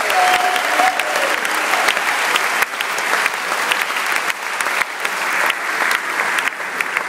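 A large crowd applauding in a hall: dense, steady clapping that eases slightly near the end.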